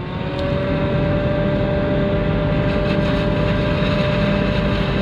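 Heavy farm machinery working at a maize harvest, running steadily with a high, steady whine over a deep engine rumble, fading in at the start.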